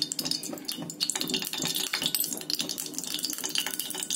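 Sesame oil heating in an aluminium pot on a gas burner, crackling with many small rapid pops over a steady low hum.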